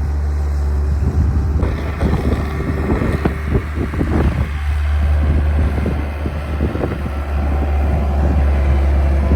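Skid steer engine running steadily with a deep hum, with irregular knocks and rattles from the machine working from about two seconds in.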